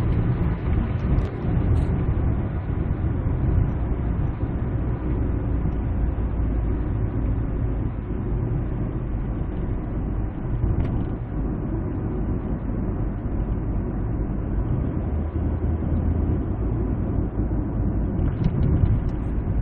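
Steady low rumble of engine and tyres heard inside a car's cabin while it cruises along a road.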